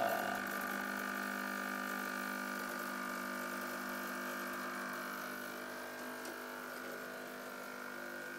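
Espresso machine's pump running during extraction while a shot pours into a cup: a steady buzzing hum that fades a little toward the end.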